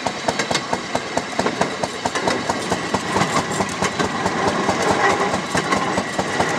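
Railroad speeder (track motorcar) running along the rails, heard from aboard: a fast, even beat of sharp ticks, about five a second, over the steady rumble of its wheels on the track.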